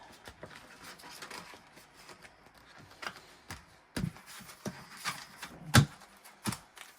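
Irregular light taps, clicks and knocks from cash envelopes and other items being handled on a tabletop, with a sharper knock just before six seconds in.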